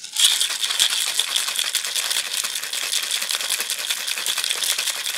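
Ice cubes rattling inside a Boston shaker, a glass sealed into a steel tin, as a cocktail is shaken hard. A dense, fast, continuous clatter that starts abruptly and keeps up throughout.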